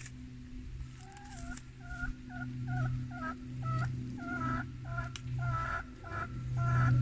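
A farmyard fowl calling in quick repeated notes, about two or three a second, starting about a second in, over a steady low hum.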